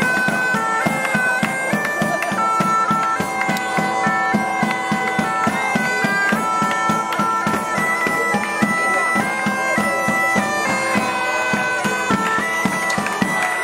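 Medieval-style bagpipe music: a stepping melody played over a steady drone, with a quick, regular beat underneath.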